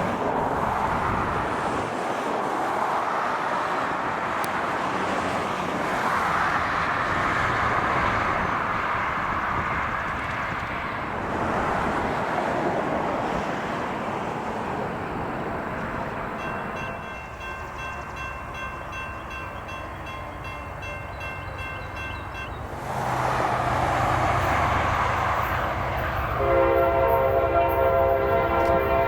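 Freight train at a grade crossing. A steady rushing noise gives way, about halfway through, to a crossing bell ringing over and over. A diesel locomotive then draws near with a low steady drone, and its multi-chime air horn sounds loudly near the end.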